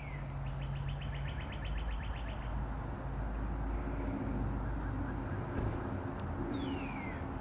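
Songbirds calling: a clear whistle sliding down in pitch, a quick trill of about nine notes a second, and near the end another falling whistle, over a steady low rumble.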